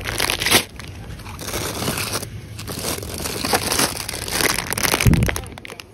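Plastic bags of gingerbread crinkling and rustling as they are handled and pushed back onto a shop shelf, with a dull bump about five seconds in.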